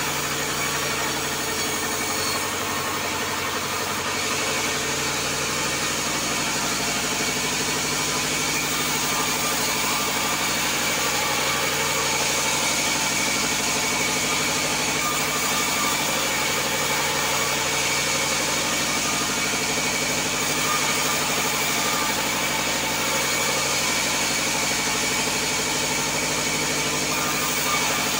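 Large vertical band saw running steadily, a continuous machine drone with several held tones, as a wooden plank is fed through it and sawn along its length.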